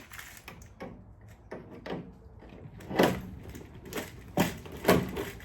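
Irregular knocks and clacks, about seven in all, the loudest about three seconds in, from the race car's sheet-metal body panels and hood being handled and checked.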